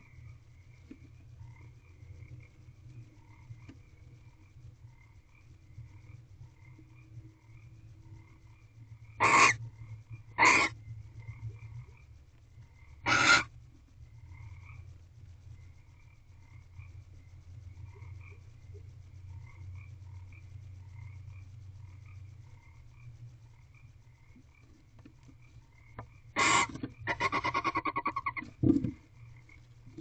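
A steady chorus of frogs croaking outside the nest box, a few short notes a second. Three short, harsh barn owl calls break in about a third of the way through, and a longer harsh spell of calling comes near the end.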